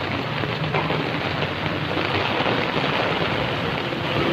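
Heavy rain falling steadily, an even hiss with no break.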